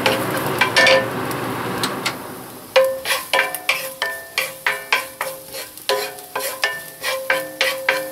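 Chopped garlic sizzling in oil in a cast-iron skillet while it is stirred with a wooden spoon. After about two seconds the sizzle fades, and from about three seconds in the spoon knocks against the pan a few times a second, each knock ringing briefly.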